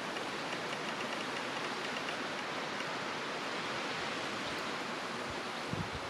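Steady hiss of shoreline ambience, like water washing among the rocks, with a few faint high ticks in the first second or so. Low rumbling thumps, like wind buffeting the microphone, come in near the end.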